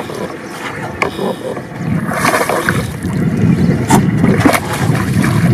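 Water splashing and sloshing as a hooked snakehead thrashes at the surface among water hyacinth while it is reeled in, with a couple of sharp splashes a few seconds in.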